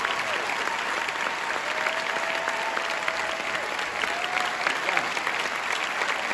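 A large theatre audience applauding, joined by the cast on stage: steady, dense clapping with no break.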